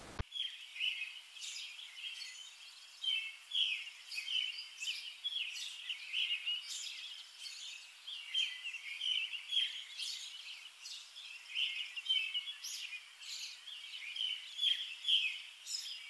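Birds chirping: a busy, overlapping chatter of short, high chirps, with nothing lower beneath them.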